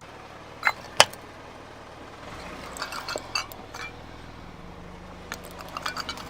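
Objects cracking and crunching under a slowly rolling car tyre: one loud sharp crack about a second in, then scattered clusters of smaller cracks and crackles, over the low rumble of the car.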